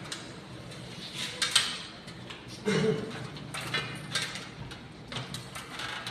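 Knocks and metallic clanks of shoes on the rungs of an aluminium ladder as someone climbs it, in a few separate clusters, with some talk in the background.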